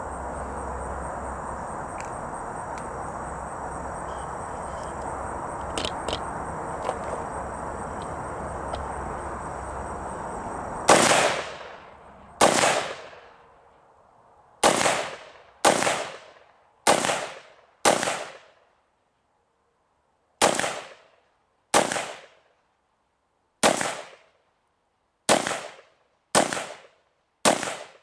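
An AR-15 carbine with an 11.5-inch barrel and a Spikes Tactical Barking Spider 2 muzzle brake under a flash suppressor cover firing .223 rounds: twelve single shots starting about eleven seconds in, one every one to two and a half seconds, each with a short echoing tail. Before the shots there is only a steady background hiss with a few faint clicks.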